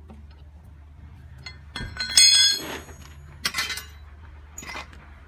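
Steel tools clanking with a metallic ring, three times: the loudest about two seconds in, another about three and a half seconds in and a smaller one near the end. A low steady hum runs underneath.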